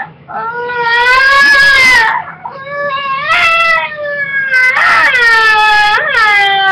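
A child making high, drawn-out whining, cry-like vocal noises in several long stretches, the pitch sliding up and down.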